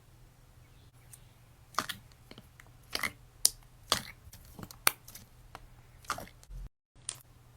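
Slime being squeezed and pressed by hand, giving irregular sharp pops and crackles, some in quick pairs. The sound drops out completely for a moment near the end, then one more pop.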